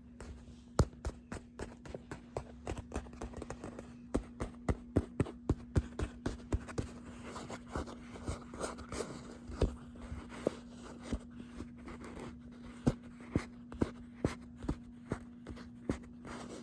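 Old, dried-out leather jacket creaking and crackling in quick, irregular clicks as it is flexed and worked by hand, over a faint steady hum. The leather is still firm and hard despite being treated with oil.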